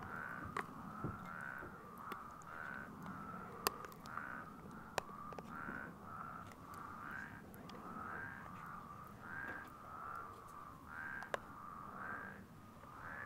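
A faint animal call repeating steadily, about three short notes every two seconds, each ending in a slight upturn. A few sharp clicks of a metal spoon against the mug as mashed potatoes are scooped out.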